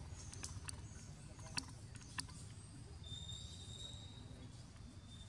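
Faint outdoor background with a low rumble, a few sharp clicks in the first half, and a thin, high, steady whistle lasting about a second and a half midway.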